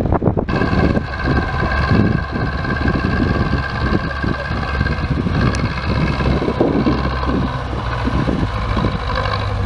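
Zetor tractor's diesel engine running steadily under load while pulling a plough, with a steady high whine above the engine note.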